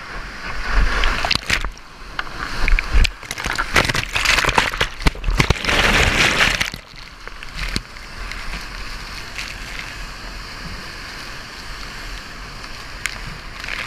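Whitewater rushing and crashing around a kayak as it drops down a steep rock slide rapid and plunges into the foam, with water washing over the camera. Loud splashing with sharp knocks through the first half, settling into a steadier rush of water.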